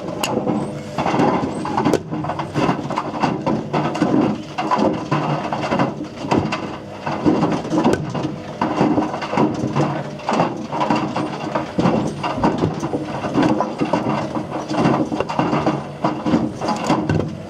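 Whirlpool WWDC 7210/1 washing machine drum turning with hard objects loose inside, which clatter and knock against the drum in a dense, irregular rattle.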